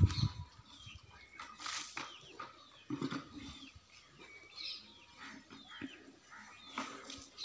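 Small birds chirping again and again, short hooked chirps overlapping. A low thump right at the start is the loudest sound.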